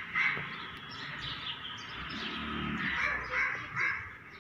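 A crow cawing in short runs of harsh calls, one just after the start and three in quick succession about three seconds in.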